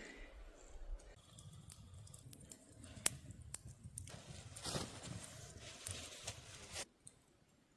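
Footsteps and rustling on a forest floor, with scattered sharp clicks like small twigs snapping and a low rumble. It all stops abruptly about seven seconds in.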